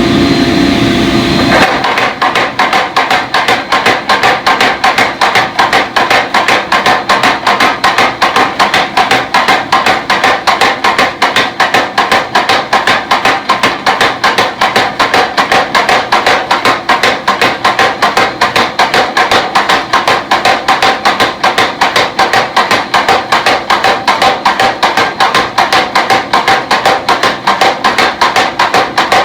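Power hammer pounding a hot 4142 chromoly steel bar, drawing out a tomahawk blade: a fast, even run of sharp metal blows, several a second, that starts about two seconds in after a steady running hum and goes on without a break.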